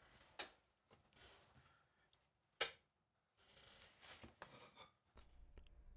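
Near silence: room tone with a few faint handling rustles and one short, sharp click about two and a half seconds in.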